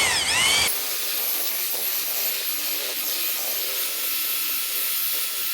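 Drill with a paddle spinning in a pail of mortar, its whine rising and falling over and over for under a second, then giving way to a steady whirring hiss as the mortar is mixed.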